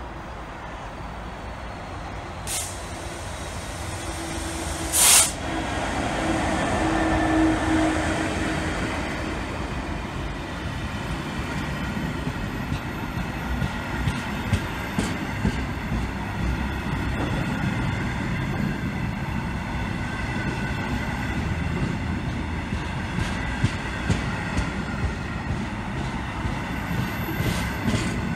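A Class 66 diesel-electric freight locomotive, with its two-stroke V12 EMD engine, passes close by, its engine note loudest about seven seconds in, with a sudden brief loud burst just before. A long train of empty steel box wagons follows, rumbling and clicking steadily over the rail joints.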